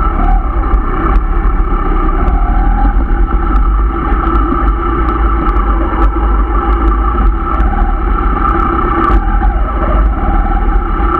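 Yamaha RX 135's two-stroke single-cylinder engine running under way on a muddy dirt road, its note rising and falling a little with the throttle over a heavy low rumble.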